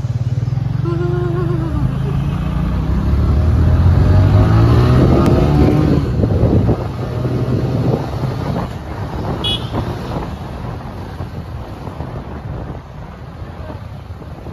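City street traffic heard from a moving vehicle: nearby motorcycle and car engines running, loudest for the first six seconds and then easing off. A short high beep sounds a little before ten seconds.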